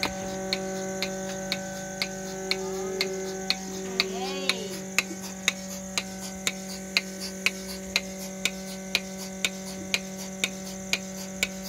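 Cow milking machine running: the pulsator clicks about twice a second over the steady hum of the vacuum pump while the teat cups milk the cow.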